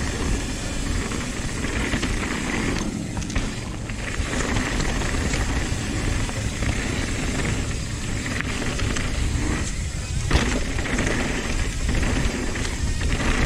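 Nukeproof Dissent 290RS downhill mountain bike descending a dry dirt trail at speed: steady wind rush on the camera microphone over the knobby tyres rolling on packed dirt, easing briefly about three seconds and about ten seconds in.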